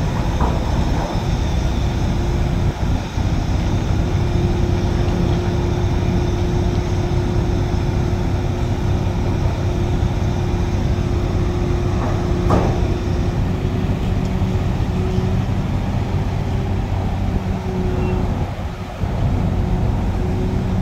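Heavy truck diesel engine running steadily, with a constant drone and no revving; a single sharp knock about twelve seconds in.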